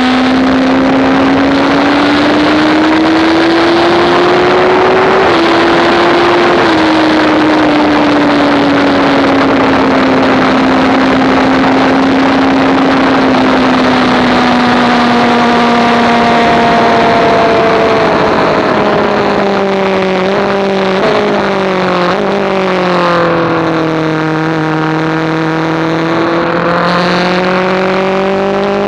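Sport motorcycle engine heard on board at speed under heavy wind rush. The engine note climbs, steps after a shift about six seconds in, and slowly eases. It drops again with shifts around twenty seconds in, then rises near the end.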